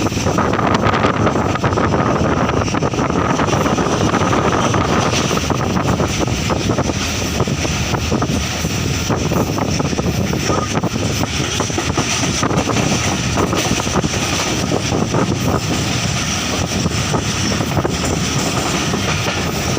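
Steady rumble and rush of a moving vehicle, with wind noise on the microphone.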